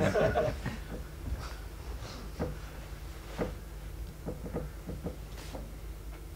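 Scattered soft clicks and knocks, roughly one a second, over a steady low hum of room noise.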